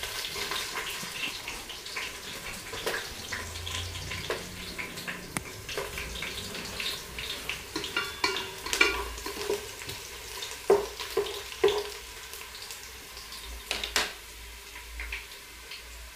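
Garlic, ginger and whole spices sizzling in hot ghee in an electric rice cooker's pot while they are stirred with a plastic paddle. There are scattered sharp crackles and clicks, the loudest a little past the middle and about two seconds before the end.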